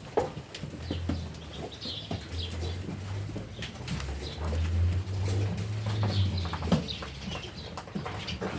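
Barn ambience around a resting flock of sheep: scattered clicks and rustles of the animals moving, short high chirps of small birds, and low cooing of pigeons in several stretches, the longest in the middle.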